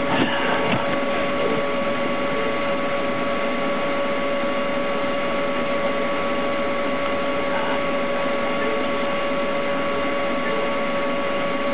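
Steady hiss with a constant two-tone electronic whine on a police dash-camera recording, with a brief crackle about half a second in.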